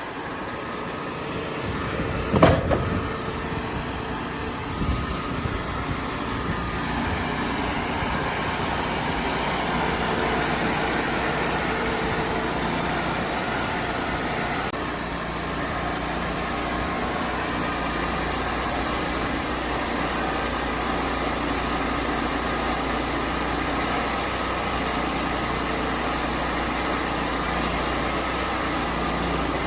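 Sawmill engine running steadily, with a sharp knock about two and a half seconds in.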